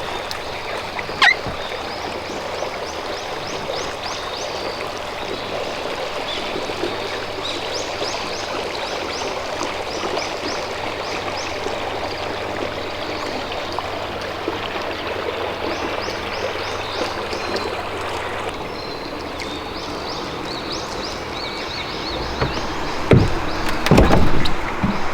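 Lake water washing and trickling in a steady hiss. A sharp click comes about a second in, and a few heavy knocks near the end are the loudest sounds.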